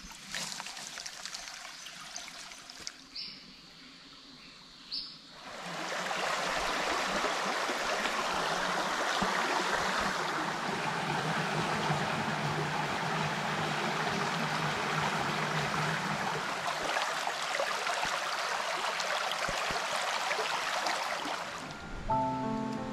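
Quiet forest ambience with two short high chirps, then from about five seconds in, a sudden, steady, loud rush of running water. Music comes in near the end.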